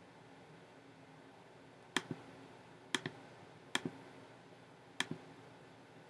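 Clicking at a computer: four double clicks, each two sharp clicks a split second apart, spaced about a second apart from two seconds in.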